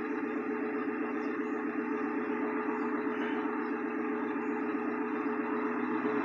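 Pickup truck engine running steadily with a fast rattle or knock in its note. The owner suspects the lifters, or the timing being off.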